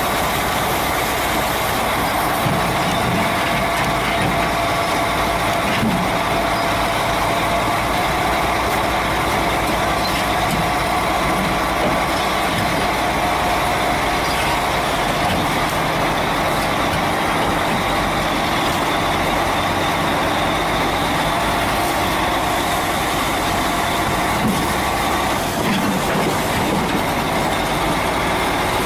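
Large crawler bulldozer's diesel engine running steadily, its pitch holding nearly constant, as the machine is driven on a lowboy trailer's deck.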